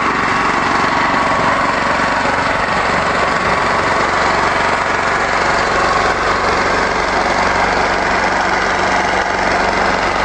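13 HP single-cylinder engine running steadily on wood gas from a gasifier, unloaded, with a fast even beat of firing pulses.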